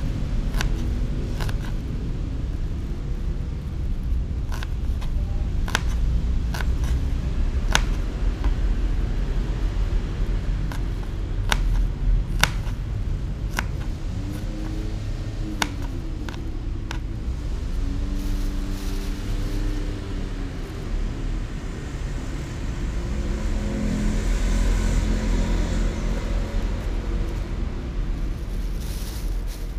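Small kitchen knife striking a plastic cutting board while dicing shallots: irregular sharp clicks through the first half or so. A steady low rumble runs underneath, and engine tones rise and fall about halfway through and again near the end as motor vehicles pass.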